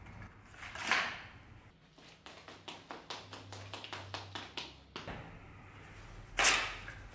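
Two swishes as a Caucasian qama dagger is handled, one about a second in and a louder one near the end as the blade goes back into its scabbard. Between them comes a quick run of light clicks, about five a second.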